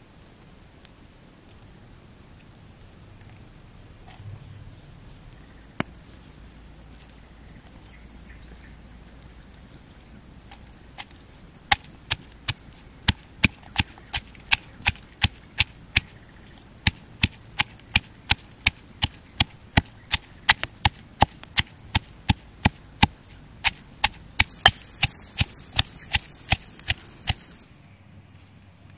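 Stone pestle pounding red chillies and garlic in a stone mortar: sharp, regular knocks, about two or three a second, starting around halfway through and stopping shortly before the end. Before the pounding there is only quiet background with a steady high whine.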